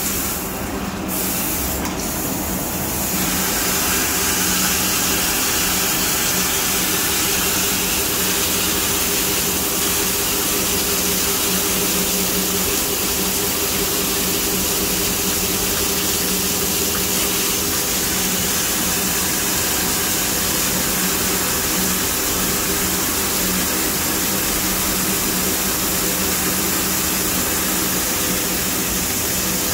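Okuma CNC lathe cutting a spinning part under flood coolant: a steady hiss of coolant spray over the even hum of the running machine.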